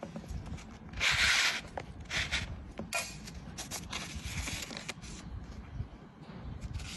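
Stiff card and paper rustling and sliding in bursts as an ornate invitation card is handled and opened and a folded letter is pulled out, with light knocks of the card being handled.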